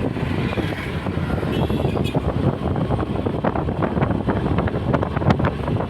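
Wind buffeting the microphone on a moving motor scooter, over a steady rumble of engine and road noise.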